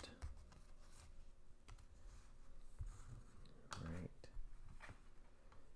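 Faint, scattered light clicks and rustles of trading cards being handled and flipped through by hand, with a short voice sound about four seconds in.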